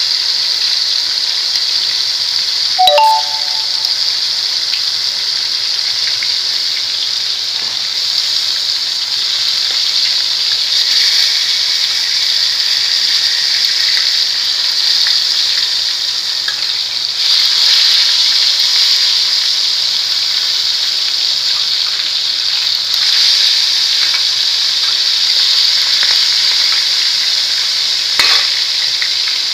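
Chicken pieces frying in oil in a steel pan, a steady sizzle throughout, with a short metallic clink about three seconds in and a knock near the end.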